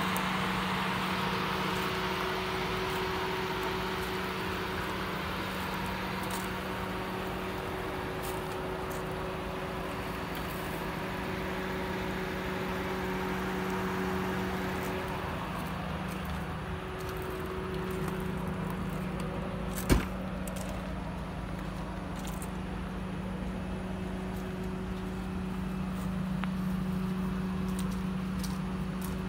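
Ford Crown Victoria Police Interceptor's 4.6-litre V8, with 308,000 miles on it, idling steadily with a constant hum. A single sharp click about two-thirds of the way through.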